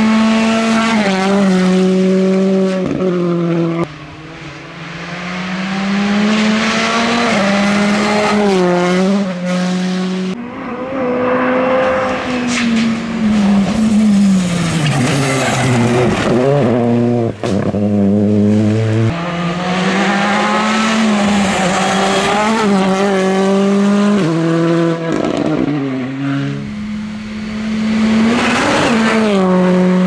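Turbocharged four-cylinder rally cars, a Hyundai i20 and a Citroën C3, driven flat out past the camera one after another. The engines hold high revs, with quick dips and climbs in pitch at gear changes and lifts, and the sound breaks off abruptly several times between passes.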